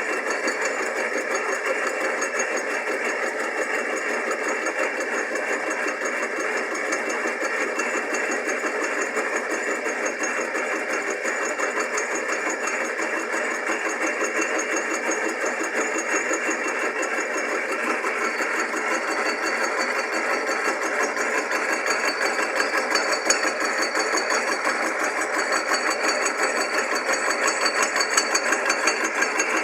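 Drill-press motor and spindle, rigged as a milling head, running steadily while its cutter takes a light skim cut across the deck of a small-block Chevy cylinder head under the lathe's power feed.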